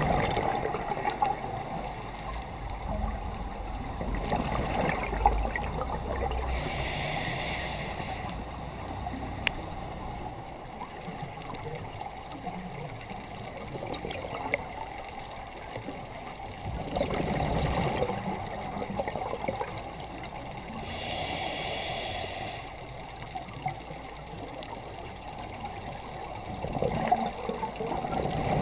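Underwater sound of a scuba diver breathing through a regulator: two hissing inhalations, about a quarter and about three quarters of the way through, with exhaled bubbles gurgling and rumbling in between over a steady muffled water noise.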